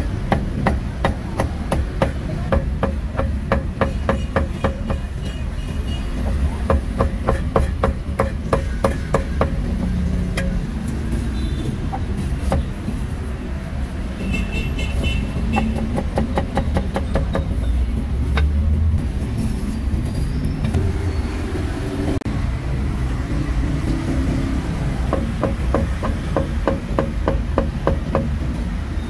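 Cleaver chopping on a thick wooden chopping block in quick runs of about five chops a second, with a pause in the middle; near the end it is dicing barbecued pork. Street traffic rumbles steadily underneath.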